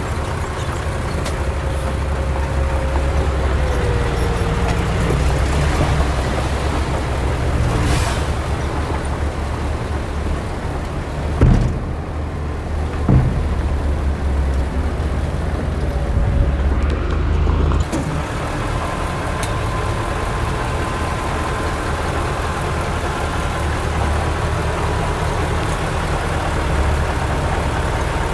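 Heavy diesel earthmoving machinery running with a steady low rumble, with two sharp knocks near the middle, typical of rock and steel striking.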